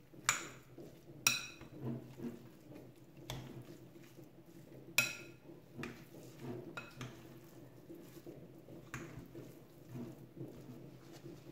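Mashed potato and tuna being mixed by hand in a glass bowl: soft squishing, broken by a few sharp clinks against the glass, the loudest near the start and about five seconds in.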